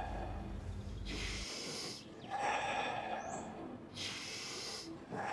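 A person doing rhythmic forceful breathing, the 'fire breath' practice. Each cycle is a sharp, intense inhale followed by a longer relaxed exhale, repeating about every three seconds, about two full cycles.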